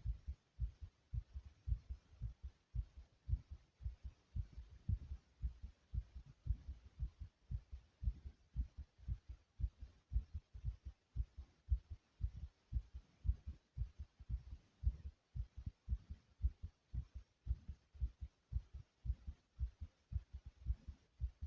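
A human heartbeat, fast and pounding: a steady, even rhythm of short, low thuds repeating several times a second.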